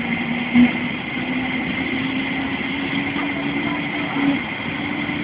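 Helicopter running on the ground: a steady turbine whine over a constant rush, with a low hum that slowly rises in pitch.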